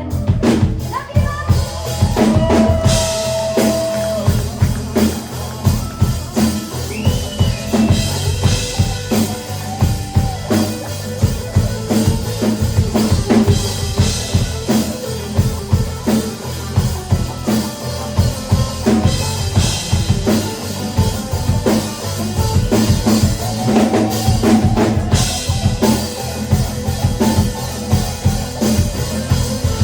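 Live rock band playing, with the drum kit's kick and snare beating steadily over bass and guitar.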